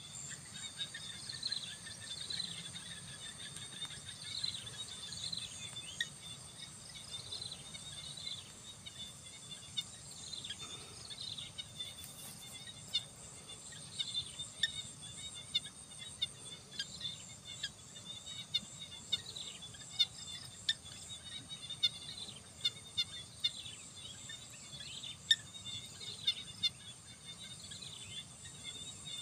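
Field ambience of insects and birds: a steady high insect drone, with short falling bird chirps every second or two and, in the second half, many short sharp chirps.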